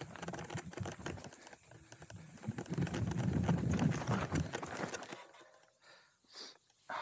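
Hardtail mountain bike clattering down a rocky trail: a dense run of knocks and rattles from the tyres striking rocks and the frame and drivetrain shaking. About five seconds in it dies down to a few scattered sounds as the bike slows.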